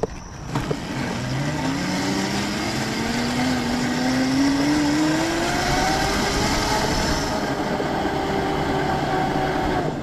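The 48-volt, 2,000-watt electric motor of a converted Razor MX400 mini bike whining under throttle: its pitch climbs steadily for several seconds as the bike gathers speed, then holds level. Wind and tyre noise hiss underneath.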